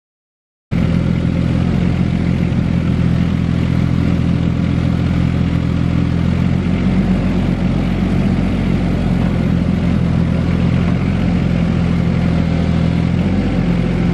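Caterpillar 302.7D CR mini excavator's diesel engine running at steady revs while its hydraulics lift a pickup truck bed. It starts abruptly under a second in, and its pitch shifts slightly about six seconds in.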